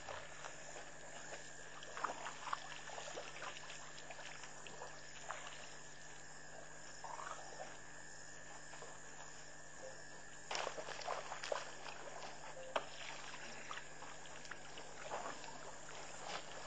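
Elephants drinking at a waterhole: irregular splashes and trickles of water as trunks dip and spill, over a steady background hum. The splashing is busiest about ten to twelve seconds in.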